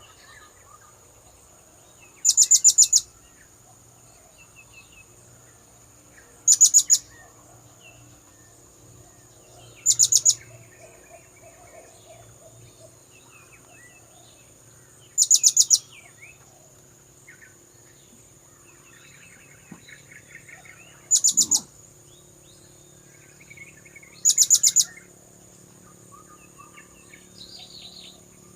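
Blue-crowned hanging parrot (serindit) lure call: short shrill bursts of rapid, very high-pitched notes, repeated six times a few seconds apart. A steady high thin tone and faint chirps of other birds run underneath.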